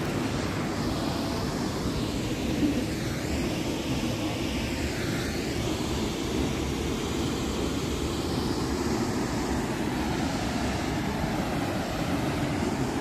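Steady rushing roar of a waterfall, an even noise that holds at one level without gusts.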